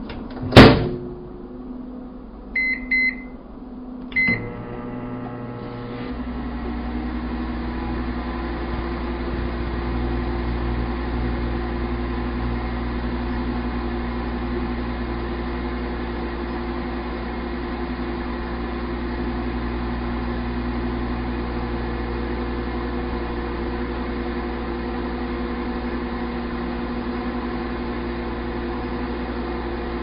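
Kenmore countertop microwave oven: a sharp knock as the door is shut, then two short keypad beeps and a third beep as it starts. It then runs with a steady hum, and a deeper hum joins about six seconds in.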